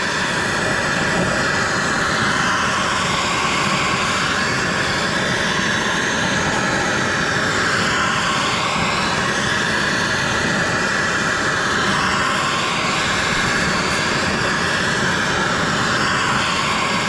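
Gas torch flame hissing steadily and loudly, with no break, as it heats a rear axle bearing housing so the housing expands to take a cold wheel bearing.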